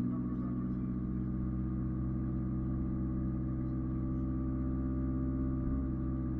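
Off-road 4x4 vehicle's engine running at steady revs, a low, even drone with no change in pitch.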